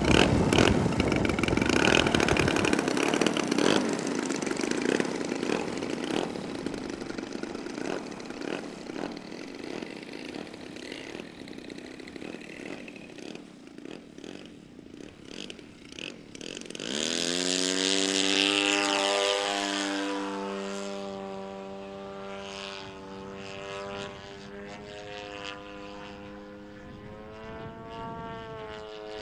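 Radio-controlled MXS aerobatic model plane. After a loud rushing noise in the first few seconds, its motor and propeller rise sharply in pitch at full throttle for takeoff, a little over halfway through. It then holds a steady note with slight rises and falls as it flies.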